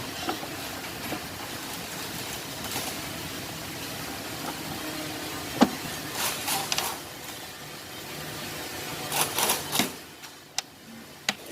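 Hand tools and engine parts being handled: short metallic clicks and rattles, with a sharp click about halfway through and two more near the end, over a steady background hum.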